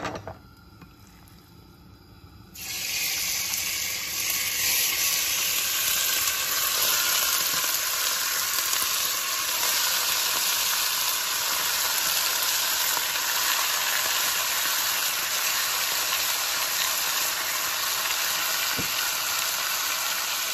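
Raw chicken breast strips frying in hot lard in a pot: a loud, steady sizzle that starts suddenly about two and a half seconds in as the meat goes into the fat.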